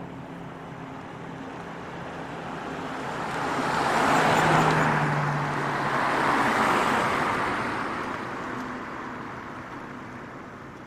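Road traffic passing: tyre and engine noise swells to a peak about halfway through, then fades away.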